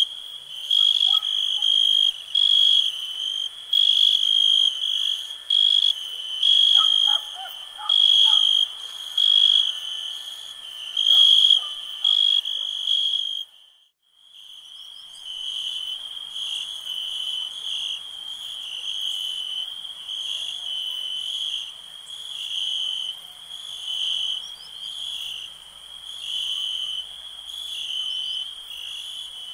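Crickets chirping in a repeated pulsing rhythm, about one chirp burst a second, with faint lower calls among them in the first half. The sound drops out briefly about halfway through, then resumes as a steadier, quieter chirping.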